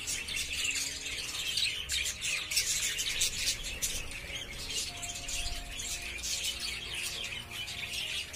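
A flock of caged budgerigars chirping and chattering continuously, with many quick, overlapping high calls.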